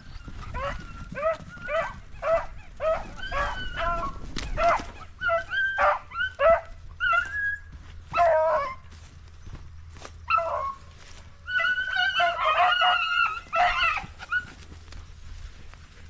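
A pack of beagles baying and yelping in quick, repeated high calls, with several voices overlapping near the end: hounds giving tongue as they run a rabbit's trail.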